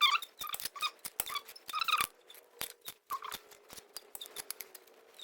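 Stakesy SSF6 shrinker stretcher with its shrinking jaws working 1.2 mm mild steel sheet: an irregular run of sharp metallic clacks and clicks, some ringing briefly, as the jaws grip and shrink the metal.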